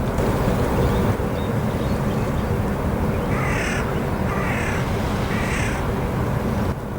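Three harsh, cawing bird calls about a second apart, over a steady low rumble.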